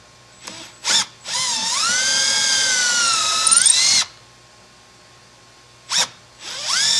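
Cordless drill boring binding screw holes into a ski through a drill guide. It whines in short runs: a brief blip about a second in, then about three seconds of steady drilling with the pitch sagging under load and picking up again, then another blip and a second run starting near the end.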